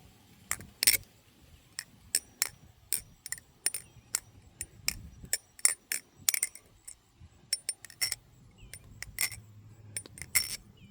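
New Era Sunshine balisong with bushing pivots being flipped: its steel handles and blade clicking and clacking against each other. Many sharp metallic clicks at an irregular pace.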